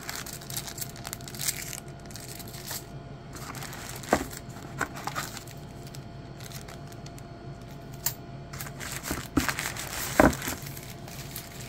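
Packaging handled by hand: a small plastic bag of screws and the thin wrapping sheet around the access point crinkling and rustling, with small clicks throughout. Two louder knocks, about four seconds in and near the end.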